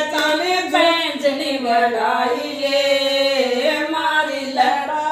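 Women singing a Rajasthani folk song unaccompanied, in long held and gliding notes.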